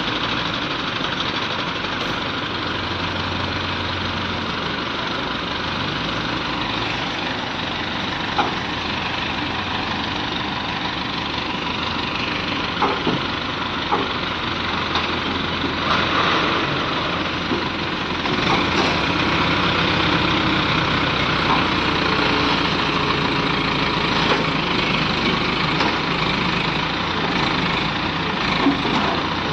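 Diesel engine of an ACE hydra pick-and-carry crane running steadily under load as the crane lifts a heavy tanker body, with a few sharp knocks. The engine gets louder a little past halfway.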